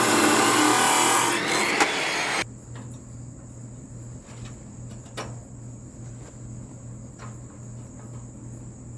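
A power tool running loudly and cutting off abruptly about two and a half seconds in, leaving a steady low hum and a few light clicks.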